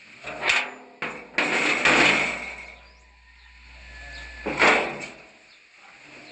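A metal door or gate latch being worked: three scraping, knocking bursts, the middle one longest, the last about 4.7 seconds in.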